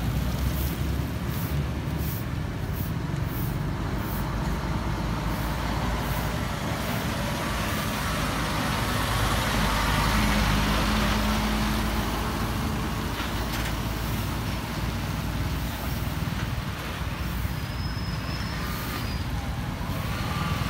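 Roadside traffic: heavy diesel trucks and motorbikes passing, with a steady low engine rumble. A truck passes close by about halfway through, and its engine is the loudest sound then.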